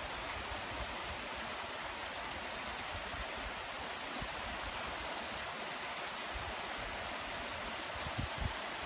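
Light, steady rain falling on leaves, grass and pavement, an even hiss. A couple of brief low bumps near the end.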